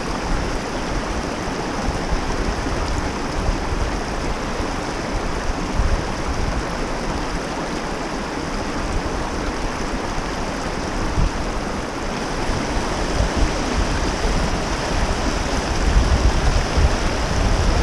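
Mountain trout stream flowing over rocks, a steady rush of water, with a low rumble rising near the end.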